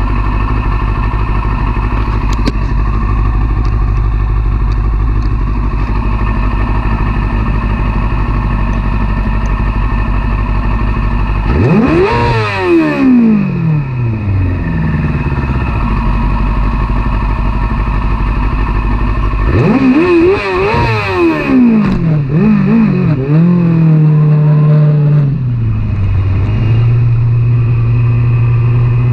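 Sport motorcycle engine idling steadily, blipped once about twelve seconds in, then revved up several times about twenty seconds in as the bike pulls away and runs up through the gears.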